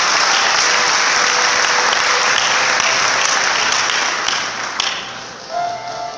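Audience applauding, a dense clapping that dies away about five seconds in. A recorded music track starts just before the end.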